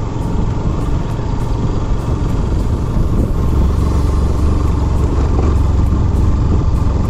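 Motorcycle on the move, its engine running under a heavy, low wind rumble on the microphone that grows a little louder about three seconds in.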